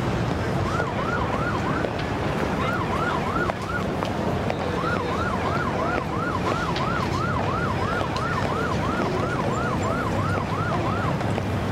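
An emergency-vehicle siren yelping, a fast up-and-down sweep about four times a second, in three spells with short breaks between them, over steady city traffic noise.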